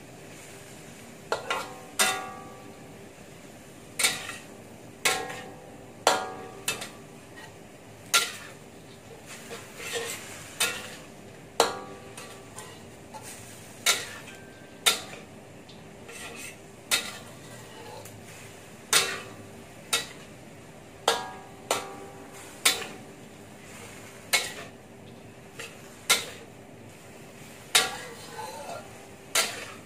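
A metal spatula stirs and scrapes chopped greens in a stainless steel wok, hitting the pan about once a second with a sharp, briefly ringing clank. A faint steady hum runs underneath.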